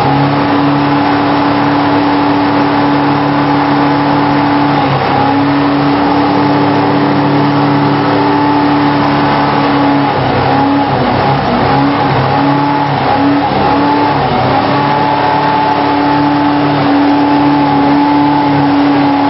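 Jet boat engine running at speed, heard from inside the cabin: a loud steady drone with a held whine. Its pitch wavers and dips briefly several times partway through and again near the end.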